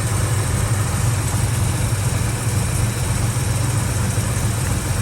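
Valiant VH Charger's engine idling steadily after a restart, running evenly with no revving.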